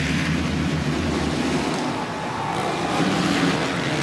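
A pack of 450cc four-stroke supercross motorcycles racing at full throttle, their engines blending into one steady, loud drone.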